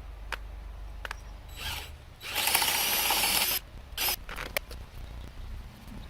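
Scattered sharp clicks and knocks, and about two seconds in a loud mechanical rattle lasting just over a second.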